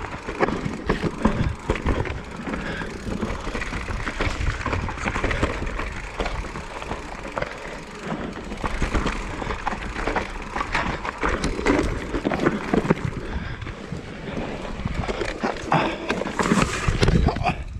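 Mountain bike descending a dirt trail: tyres rolling and skidding over dirt and roots, the bike rattling and clattering over bumps, with louder knocks near the end.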